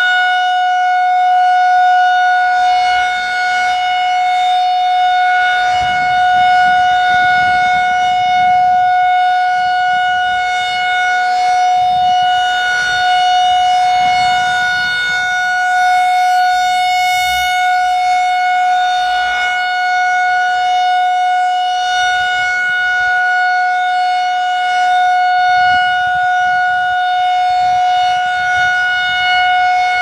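Federal Signal 2001-SRN electromechanical warning siren sounding a steady single tone at constant pitch. Its level swells and fades slightly as the rotating horn turns.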